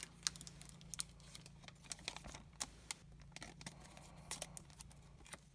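Faint handling of Pokémon trading cards and booster packs: scattered light clicks, taps and rustles as cards are set down and the next pack is picked up, over a low steady hum.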